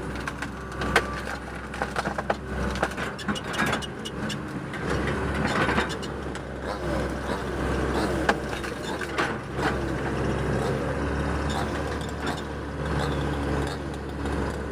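Excavator's diesel engine running steadily, with scattered sharp knocks and clanks from the bucket working the ditch.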